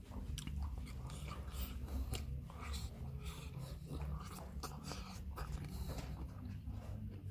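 Close-miked chewing and biting of food: irregular wet clicks and crackles of the mouth, over a low steady hum.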